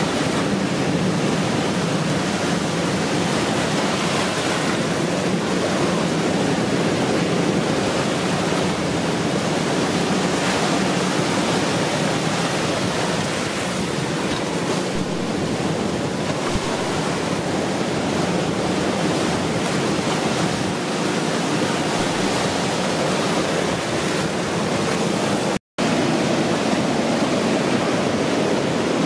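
Ocean waves breaking on the shore, a continuous rushing surf noise. The sound cuts out for an instant about three-quarters of the way through.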